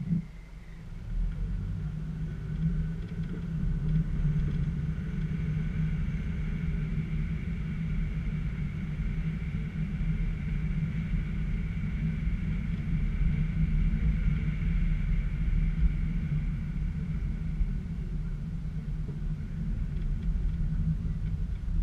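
A car driving, heard from a camera mounted on the front of the car: a steady low rumble of engine and road noise with a faint high whine over it through most of the stretch.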